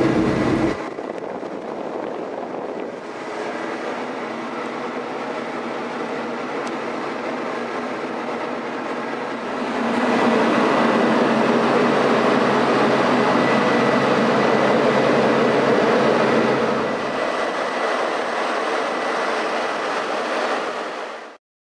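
Dewulf ZKIIIse self-propelled harvester working: a steady mechanical noise of its engine and conveyors. It grows louder about ten seconds in, drops a little near the end, then cuts off suddenly.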